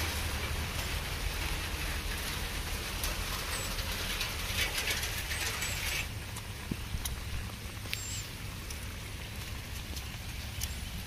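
Rain falling, its drops pattering, easing noticeably about six seconds in. A few faint high chirps are also heard.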